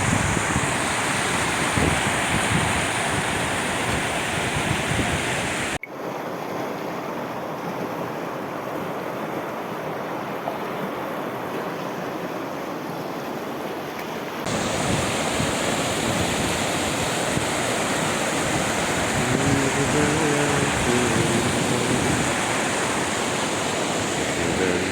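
Mountain stream at its spring rushing over rocks: a loud, steady roar of white water. The sound changes abruptly about six seconds in and again at about fourteen seconds, where it turns duller and then full again.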